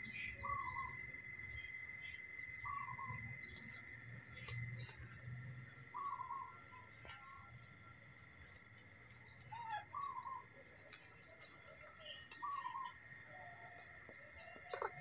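Faint short chirping calls repeating every one to three seconds, over a steady high insect-like drone.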